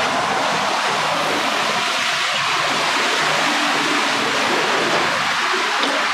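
Steady rush of running water during a radiator leak test with water.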